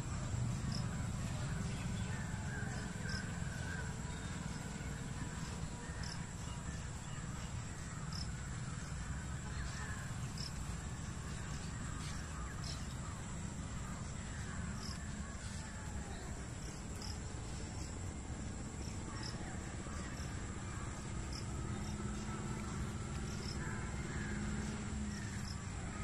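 Outdoor garden ambience: birds calling in the background over a steady high insect drone, with short high chirps about once a second and a low rumble underneath.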